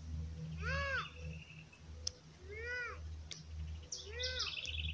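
An animal calling three times, each call a short rising-then-falling note with overtones, some led by a brief high chirp, spaced about one and a half to two seconds apart.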